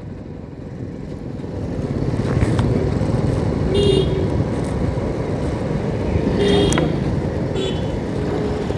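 Motorcycle engine and wind noise while riding, growing louder about a second and a half in as the bike picks up speed. A few short horn beeps from traffic sound along the way.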